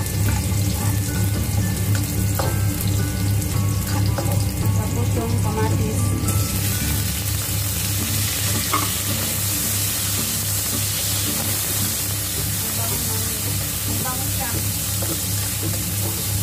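Oil sizzling in a wok as chopped spring onion and garlic are stir-fried with a spatula. About six seconds in the sizzle changes as tomato wedges go into the pan and are stirred.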